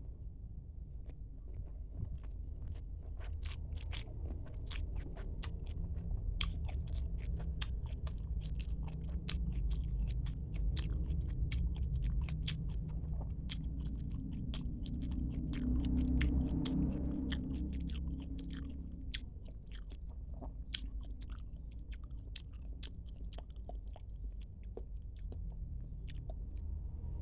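Close-miked chewing of squid: a dense, irregular run of small wet clicks and smacks from the mouth, without a break, with some crunching bites.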